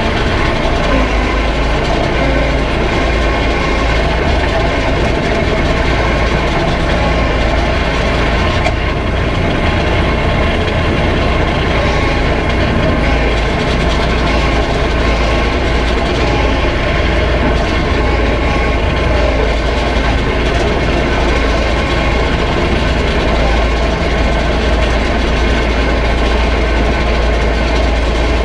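Tractor engine running steadily under load, heard from inside the closed cab: a constant low drone with several steady tones over it.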